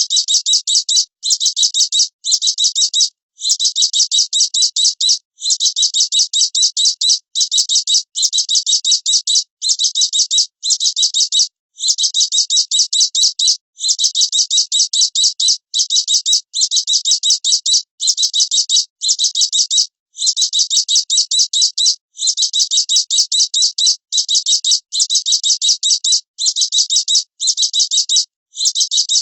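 Small songbird singing a fast, high-pitched rattling trill, repeated in bursts of about one to two seconds with brief pauses between them.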